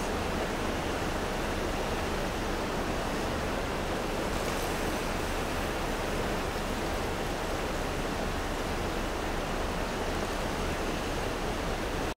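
Creek water rushing steadily, an even wash of noise with no separate splashes.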